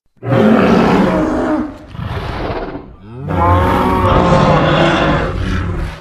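Indian rhinoceros sound effect: two long, loud pitched calls. The first starts just after a moment of silence and fades about two seconds in; the second follows a quick falling sweep about three seconds in and runs almost to the end.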